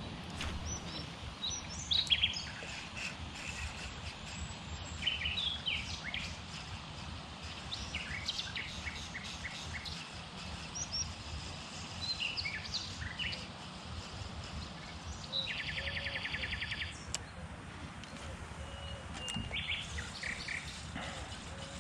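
Wild birds singing and calling: many short chirps, with a rapid trill lasting about a second and a half about two-thirds of the way through, over a low steady rumble.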